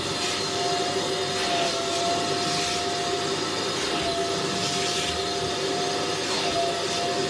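Wet-extraction upholstery vacuum running with a steady whine as its nozzle is drawn along a fabric sofa cushion. Every second or two the suction hiss swells and the motor's pitch dips briefly as the nozzle strokes the fabric.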